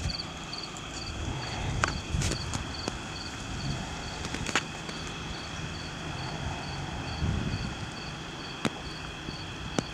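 Crickets chirping in an even pulse of about two chirps a second over a low rumble, with a few sharp pops.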